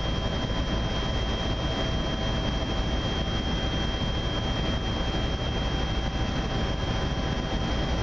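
Helicopter cabin noise in steady flight: a constant rush of engine and rotor noise with several thin, steady high-pitched whines running through it.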